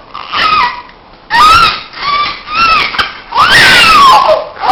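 A baby crying in a run of short wails, with a longer cry about three seconds in that falls in pitch.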